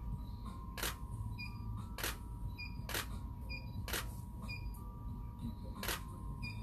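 Camera shutter firing five single shots, roughly one a second, with a longer gap before the last, and faint short beeps between the shots.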